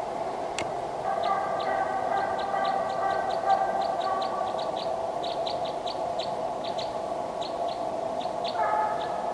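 A small bird calling in short high chirps, several a second, over a steady faint hum.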